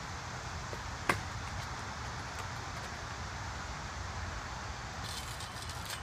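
A single sharp clack of a kick scooter hitting the asphalt about a second in, over a steady outdoor background hiss.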